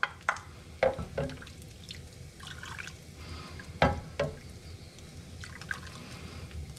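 Birria broth being ladled from a saucepan into a ceramic bowl: liquid pouring and dripping, with a few short knocks of the ladle against the pot and bowl.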